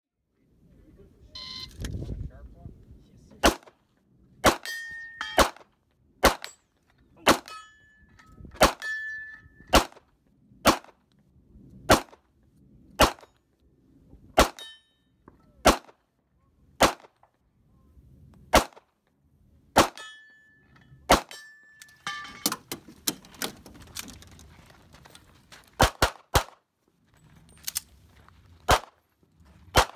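Handgun shots fired one at a time, about one a second, coming in a quicker string near the end. Several shots are followed by the brief ringing ding of hit steel targets.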